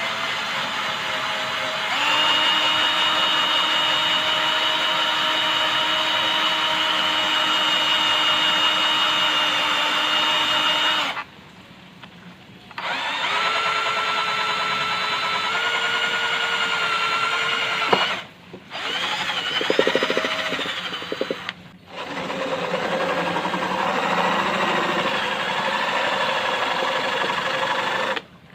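Electric drill running in several long runs, its motor whine steady with small shifts in pitch, broken by short pauses where it stops and starts again.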